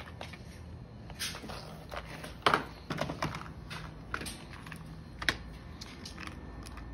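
Irregular plastic clicks and light rattles from a clear plastic box of muzzleloader bullets and sabots being opened and handled, with a few sharper clicks scattered through.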